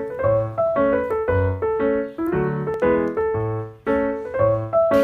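Background instrumental music: a keyboard tune of short notes in an even rhythm over a repeating bass line.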